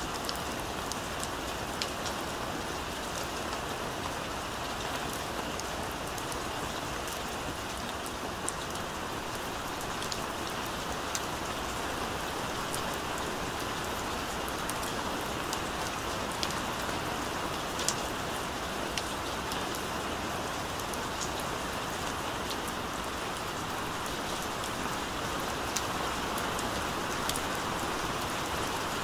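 Steady rain falling: an even hiss with scattered sharper ticks of single drops.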